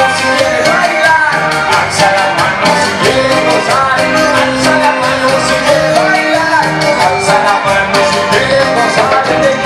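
Live band playing Latin American dance music with a steady beat: a lead singer on a microphone over electric guitar, bass guitar and drum kit.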